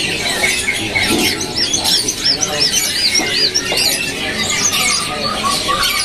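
Many small cage birds chirping and calling over one another, with a quick run of high, arched chirps repeated in the middle.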